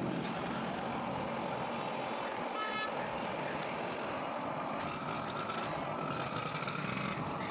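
Steady road traffic noise, with a vehicle horn tooting briefly about two and a half seconds in.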